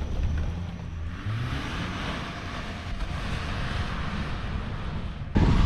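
A vehicle engine running, its pitch rising about a second in as it revs, under a steady rushing hiss. The sound changes abruptly and gets louder near the end.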